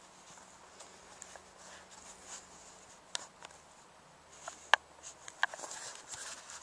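Faint rustling with a few short, sharp clicks and taps, the loudest about three seconds in and again near five seconds: handling noise from a handheld camcorder being moved about.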